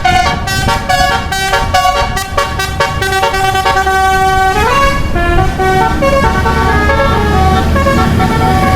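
Telolet bus horn: a set of musical air horns playing a quick run of notes, then a held note that slides upward about four and a half seconds in. Fainter horn tones follow over a low rumble.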